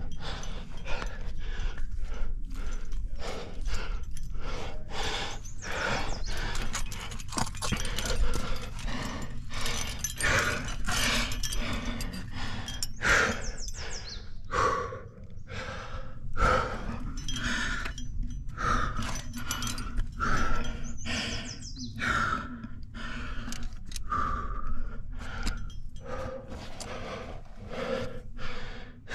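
A climber's heavy, rapid breathing close to the microphone: quick, rhythmic breaths of hard exertion mid-climb, over a steady low rumble.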